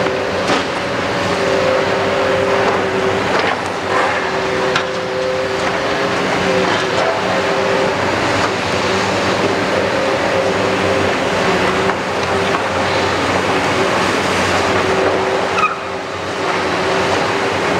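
Heavy hydraulic demolition excavators working: a steady diesel engine drone with a hydraulic whine held at two steady pitches, and scattered sharp cracks and clatter of concrete rubble being broken and falling.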